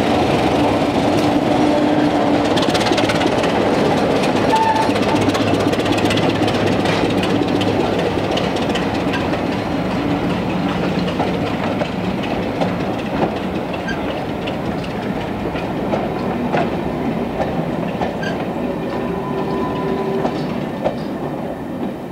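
British Rail Class 25 diesel locomotive's Sulzer engine running as it passes hauling a train of coaches. The coaches follow with their wheels clicking over the rail joints, the sound easing as the train draws away.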